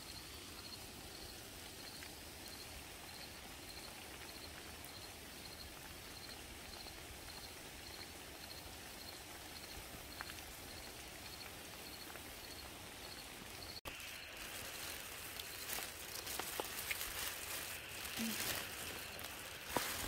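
Outdoor ambience: a soft steady hiss with a faint high chirp repeating about twice a second. About two-thirds through it cuts to a louder night chorus: a steady high drone with scattered knocks and clicks.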